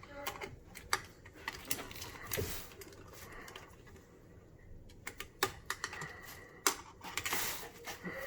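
Screwdriver tightening small screws on a garbage disposal's electrical connection: irregular light clicks and ticks, with two longer scraping rustles, about two and a half seconds in and near the end.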